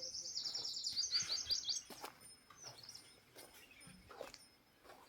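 A small bird singing a rapid trill of high, repeated notes for about two seconds, followed by a few faint knocks.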